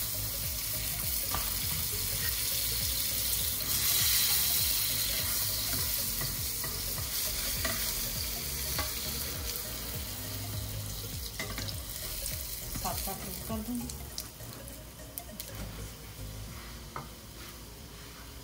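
Butter sizzling in a hot frying pan, loudest about four seconds in and slowly dying down, with a few light clicks.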